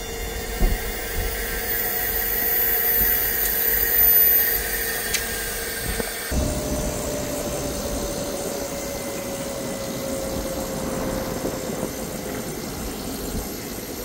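Trane TVR 7G inverter VRF outdoor unit running in its cooling test run: a steady machine hum with whining tones. About six seconds in the sound changes abruptly, and after that a whining tone slowly falls in pitch.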